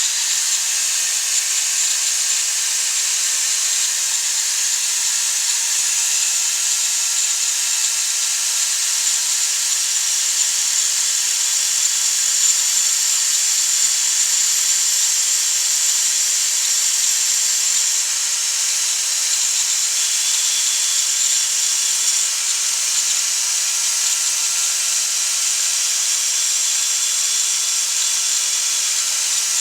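A power tool running steadily without a break: a continuous high hiss with a faint whine.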